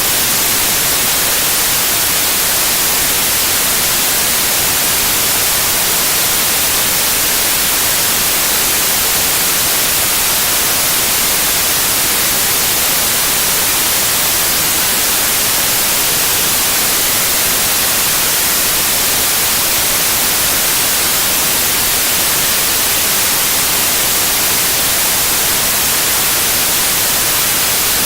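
Steady synthetic white noise, an even hiss with no change at all.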